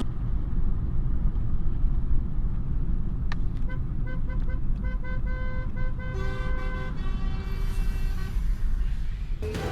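A horn sounding in a quick series of short toots, then two longer blasts, the second lower in pitch, over a heavy, steady low rumble.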